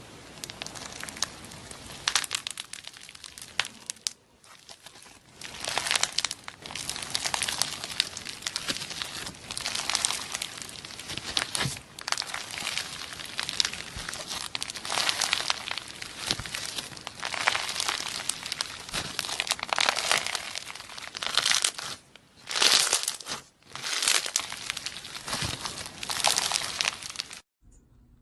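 Slime being squeezed and pressed by hand, giving a dense crinkling crackle of tiny pops that swells and fades every couple of seconds, then stops abruptly near the end.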